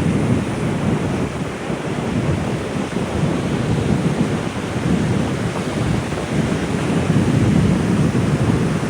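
Ocean surf washing on a beach, with wind buffeting the microphone into a loud, uneven low rumble.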